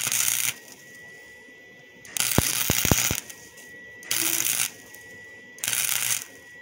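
Welding arc crackling in short bursts of about half a second, four times, a second or two apart, as a weld is laid down in stitches. A few sharp clicks come during the second burst.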